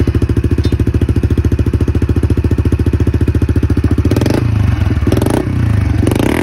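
2019 Honda CRF110F's single-cylinder four-stroke engine, breathing through a newly fitted Pro Circuit T-6 exhaust, idling steadily just after starting. From about four seconds in it is revved in three short throttle blips, about a second apart.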